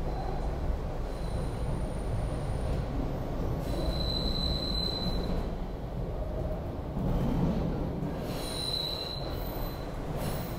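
Inside a moving SEPTA Broad Street Line subway car: the steady rumble of the car running on the tunnel track, with a high squeal from the rails twice, about four seconds in and again near the end.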